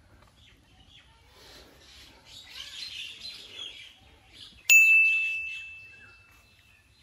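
Faint bird chirps, then about two-thirds of the way through a single loud, bright ding that rings and fades away over about two seconds.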